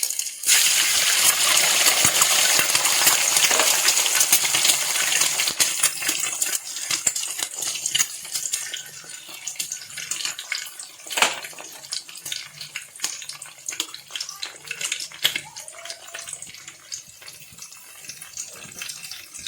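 Eggs added to hot oil and vegetables in a frying pan, sizzling loudly all at once, then easing after about six seconds to a quieter crackling sizzle. One sharp knock of a utensil near the middle.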